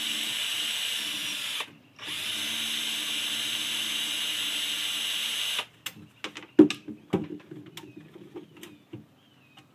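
Cordless drill-driver spinning steadily as it backs small screws out of a car CD player's steel case. It stops for a moment under two seconds in, runs again for about three and a half seconds, then cuts off. After that come a few sharp knocks and clicks as the drill, radio and screwdriver are handled on the wooden bench, the loudest about a second after the drill stops.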